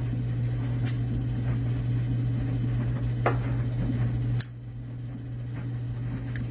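A steady low hum with a few small sharp clicks and snips from wire strippers working on electrical wire. A louder click about four and a half seconds in, after which the hum is quieter.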